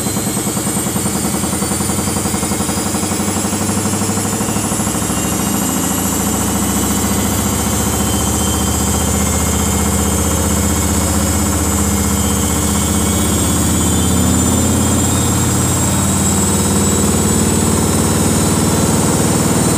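Samsung front-loading washing machine's drum spinning up under its motor, the whine rising steadily in pitch as the spin climbs from about 500 to about 1150 RPM, over a steady low hum.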